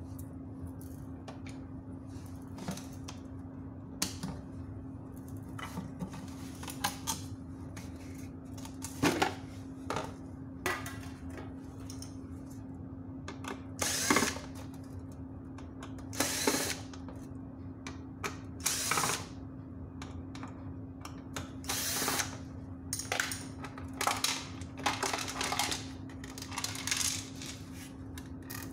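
Cordless drill-driver run in repeated short bursts, each a second or less, backing the screws out of an LED street-light housing, with a few clicks and knocks from handling the parts. A steady low hum runs underneath.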